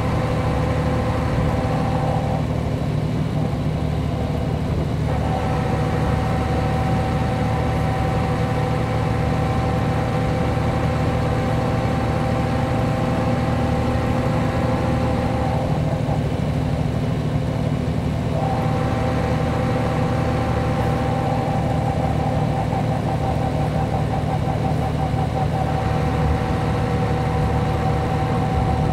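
Mercedes-Benz O 405 G articulated bus's horizontal six-cylinder diesel idling steadily. A higher whine over the engine note cuts out twice for a few seconds, about two seconds in and again at around a quarter of a minute, then returns.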